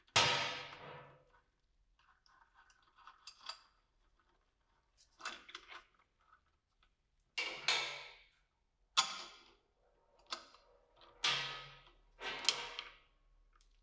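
A series of separate clinks and knocks, about eight in all, each ringing out briefly with silence between. These are tools and the metal bracket parts of a BMW R1300GS's stock exhaust silencer being handled as its holder screw is taken out to remove the silencer.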